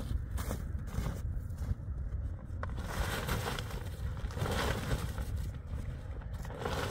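Snow-laden canvas tent cloth being pulled and handled, rustling and scraping with crunching snow in a few swells, about three seconds in, again past four seconds and near the end. A steady low wind rumble on the microphone runs underneath.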